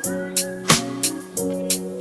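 Background music with a steady beat: drum hits and sustained chords.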